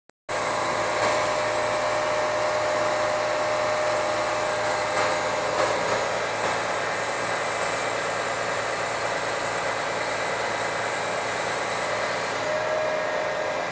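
MAN TGA truck-mounted CIFA concrete pump running steadily, with a steady whine over the machine noise that drops out about halfway and comes back near the end.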